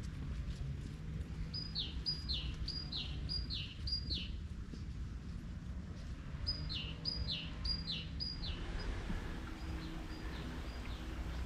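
A songbird singing quick runs of about five identical whistled notes, each sliding down in pitch, twice with a pause between and fainter near the end, over a steady low rumble of wind and background noise.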